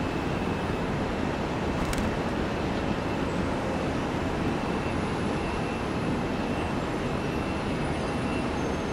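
Boeing 767 freighter's twin jet engines running at taxi power, a steady rumble and hiss with a faint high whine.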